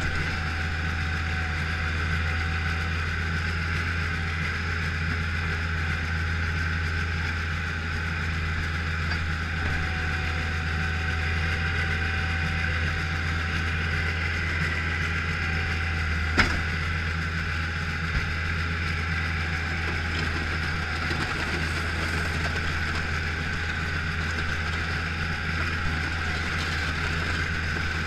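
Bobcat skid-steer loader's engine running at a steady pitch as it plows snow, heard from the operator's cab. A single sharp knock sounds about sixteen seconds in, and a lighter one about two seconds later.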